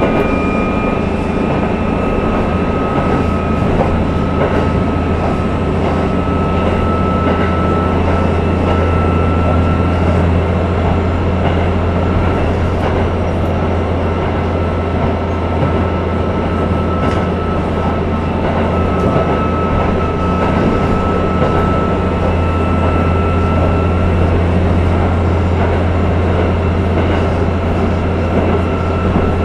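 KiHa 11 diesel railcar under way, heard from inside the passenger cabin: a steady deep diesel drone under the rumble of wheels on rail. A thin whine runs through it and rises slightly in pitch twice.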